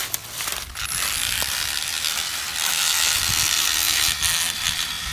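Battery-powered electric rubber-tapping knife running as it shaves a tapping groove into rubber tree bark: a steady, mostly high-pitched mechanical whirring that sets in about a second in.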